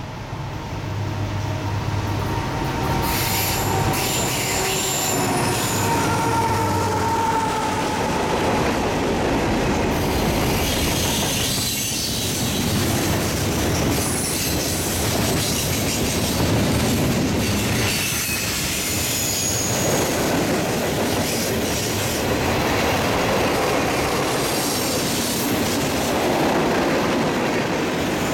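Freight train passing close by: the diesel locomotives' engines run as they go past, then the freight cars roll by with wheels clicking over rail joints and occasional high-pitched wheel squeal.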